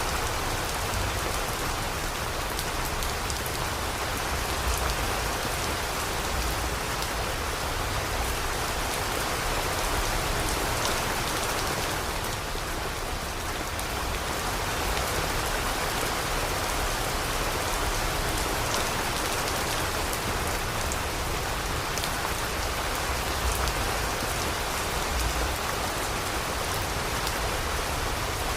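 Steady heavy rainfall, drops pattering on a surface, with no let-up.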